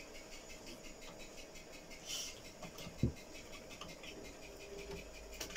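Faint sounds of coffee being drunk from a mug: a short slurp about two seconds in, then a single dull knock about a second later as the mug is set down on the table.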